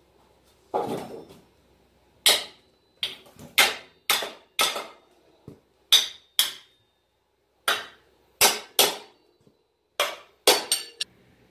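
Hammer blows on a metal bicycle frame: about fifteen sharp, ringing metallic strikes at an uneven pace, with short pauses between groups. The blows are knocking cut remnants off the frame tube.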